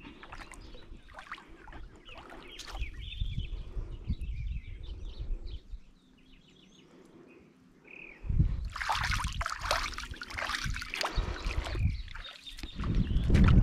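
Shallow water sloshing and splashing as a person wades barefoot and lowers a collapsible crab trap net into it, with a louder stretch of splashing in the second half.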